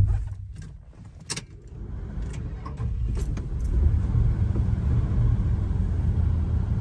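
Low, steady rumble of the 1977 Chrysler Town & Country's 440 V8 and road noise heard inside the cabin while driving. The rumble grows louder over the first few seconds and then holds, with a few light clicks near the start.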